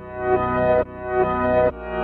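Instrumental break of a synth-pop song: sustained synthesizer chords that swell up and cut off sharply in a steady pulse, a little more than one swell a second, with the bass coming in stronger near the end.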